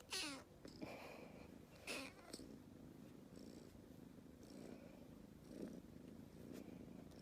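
Calico kitten giving a short meow that falls in pitch right at the start, a brief call about two seconds in, then purring softly.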